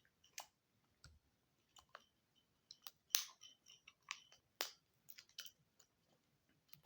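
Faint, irregular light clicks and taps of plastic parts as a small speaker is pried and worked out of a sound machine's plastic casing, the loudest a little past three seconds in and again about four and a half seconds in.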